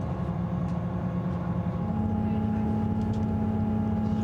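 Diesel engine and running noise of a Northern Class 158 diesel multiple unit, heard from inside the carriage, with a steady hum and rumble. About two seconds in, the engine note steps up in pitch.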